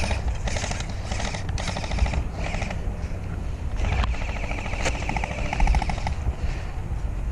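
Airsoft electric guns firing rapid full-auto bursts: fast, evenly spaced mechanical rattles, repeated several times over a low rumble.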